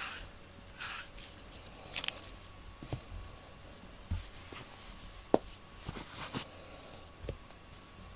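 Short scratchy strokes of a FURminator deshedding comb drawn through a cat's thick coat, pulling out loose undercoat. Then scattered light clicks and taps as the loose fur is handled into a glass jar, with one sharper click about five seconds in.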